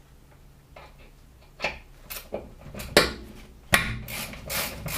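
Ratchet with an Allen-key socket working the brake caliper guide pins: a few scattered clicks and two sharp knocks, then about a second of ratcheting strokes near the end.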